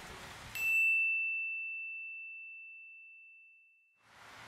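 A single high, clear ding, struck about half a second in and ringing out slowly for about three seconds over dead silence: a chime sound effect laid over the fade to black.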